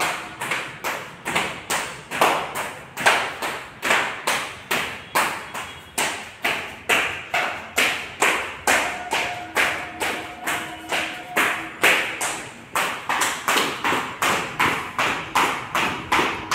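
Sneakered feet landing on a hard floor during jumping jacks and running on the spot: an even rhythm of sharp thumps, about two a second.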